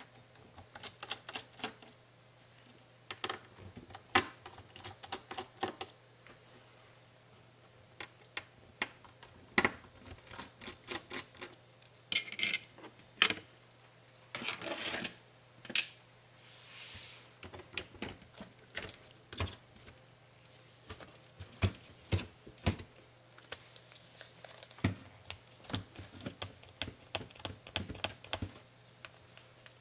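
Irregular small clicks, taps and crackles from hands working on a laptop screen assembly: clear adhesive tape being peeled off the LCD panel's edge and plastic lid parts being handled. About halfway through there are a couple of longer tearing rustles of the tape coming away.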